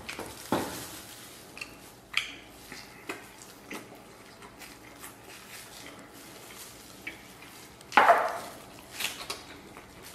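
Close-up eating sounds: biting and chewing roast lamb off the bone, with scattered small clicks and wet mouth noises and one louder burst about eight seconds in.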